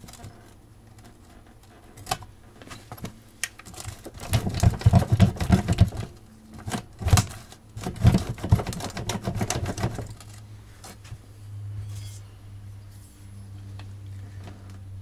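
Metal clicking, knocking and rattling as a pressure washer's pump and gearbox are wiggled and worked off the engine's crankshaft, where they are stuck tight. Two dense flurries come in the middle, then the knocking stops and a steady low hum remains.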